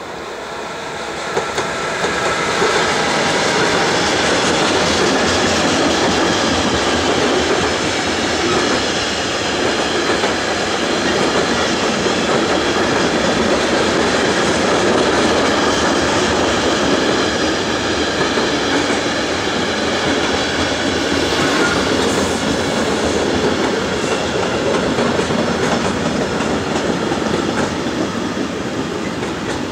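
Freight train of container wagons hauled by a Siemens Vectron electric locomotive passing close by, the wheels rolling on the rails in a steady rumble with fine clattering. The noise builds over the first few seconds as the train arrives and eases a little near the end.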